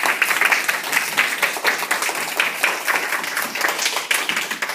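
A group of children applauding, many quick overlapping hand claps.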